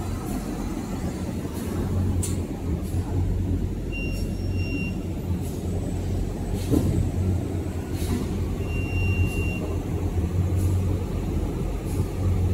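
Industrial tissue-paper rewinding machine running: a steady low hum with short clicks and hisses about every second or so, and two brief high tones partway through.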